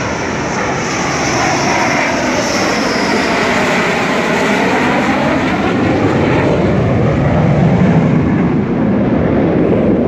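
A Dassault Rafale fighter jet's twin turbofans as it passes low overhead on approach to land: loud jet noise with a sweeping, phasing quality, swelling to its loudest near the end.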